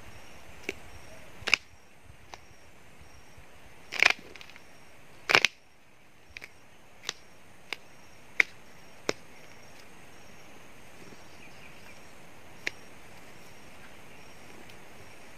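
Sharp, irregular cracks and snaps of a cut tree trunk being rocked and pushed to loosen it from the ground, with two louder cracks about four and five seconds in. A faint high chirp repeats about twice a second behind them.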